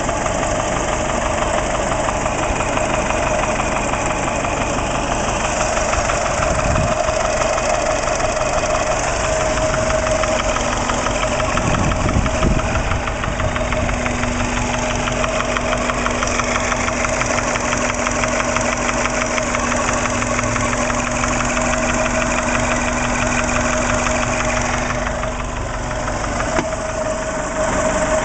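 Subaru EJ20 flat-four engine idling steadily with a rapid knocking tick. The owner places the knock at the top of the passenger-side cylinder head above cylinder one; its cause is undiagnosed, with normal oil pressure and no metal found in the oil.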